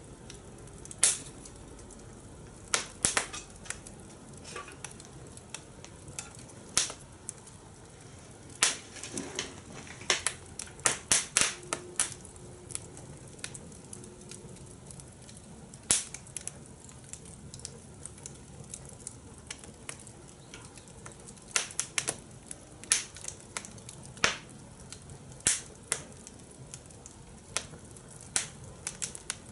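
Fire crackling in a fire pit: irregular sharp pops and snaps, some in quick clusters, over a low steady hiss.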